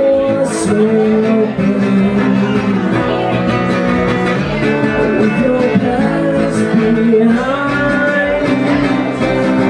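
Live acoustic rock band: strummed acoustic guitars under a male lead vocal singing long held notes.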